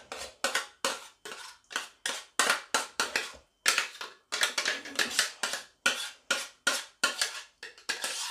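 A utensil scraping the last béchamel sauce out of a pot in quick repeated strokes, about two to three a second.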